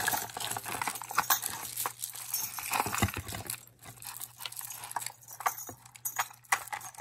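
Costume jewelry rattling and clinking as a hand rummages in a cardboard box and lifts out tangled beaded necklaces, with beads and metal pieces clacking together in quick, irregular clicks.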